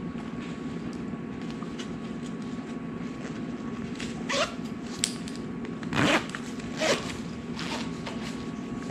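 Zipper on a small blood glucose meter case being pulled in short strokes, four quick rising rasps in the second half, over a steady low hum.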